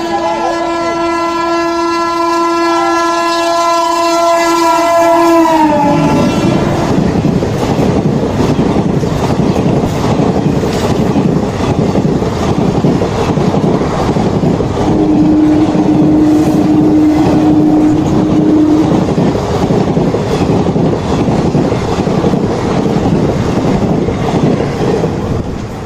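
Indian express train passing at speed. Its locomotive horn sounds one long blast that drops in pitch as the engine goes by, then the coaches rush past with a loud rumble and wheel clatter. A second, lower horn note sounds for a few seconds midway.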